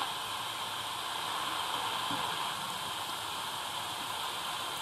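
Steady static hiss from a Tecsun DR-920C portable radio's speaker as it is tuned across the medium-wave band between stations, with poor reception.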